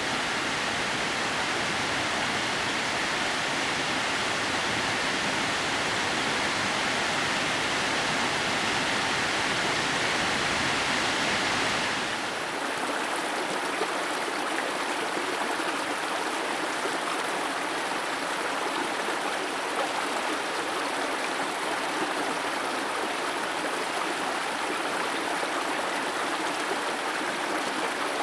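Steady rush of water from a 30 m waterfall that falls in thin threads down a rock face. The sound changes abruptly about twelve seconds in, losing its low rumble and turning thinner and brighter.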